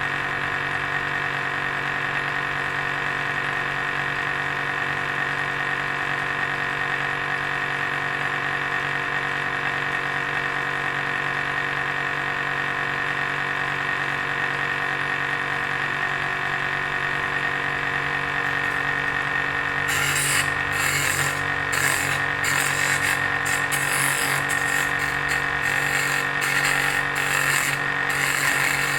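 Bench drill press motor running steadily, spinning a wooden workpiece as a makeshift lathe. About twenty seconds in, a cutting tool is put to the turning wood, adding irregular scraping as the chisel handle is shaped.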